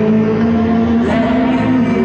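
Neoclassical dungeon synth music with sustained held chords; the chord changes about a second in.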